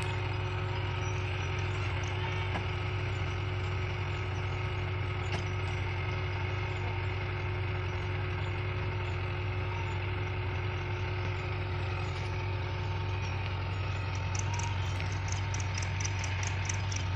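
A heavy vehicle engine running at a steady speed with a constant low hum, without revving. A faint rapid ticking joins near the end.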